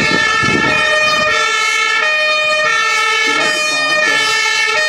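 Fire engine's German two-tone siren (Martinshorn), steadily alternating between a high and a low note as the vehicle approaches.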